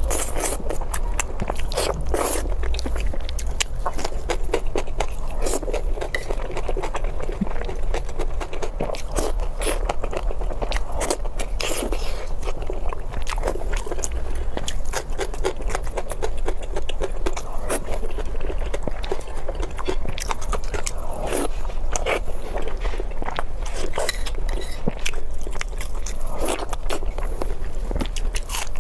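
Close-miked eating: steady chewing and biting with crunchy, crackly mouth sounds and occasional scrapes, going on without a break.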